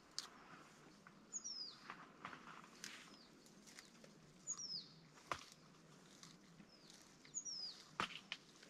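A bird repeating a short high whistled call that slides down in pitch, three times about three seconds apart. A few faint sharp clicks come between the calls.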